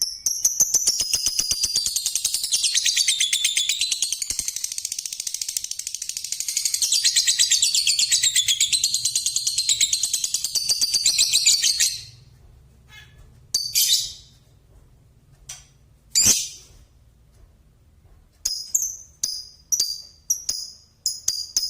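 Male lovebird singing its long 'ngekek': a rapid, high, unbroken chattering trill lasting about twelve seconds. It then breaks into short separate chirps with gaps, and the chatter starts up again near the end.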